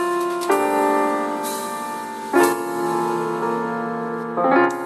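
Background piano music: slow, sustained chords, with a new chord struck about every two seconds.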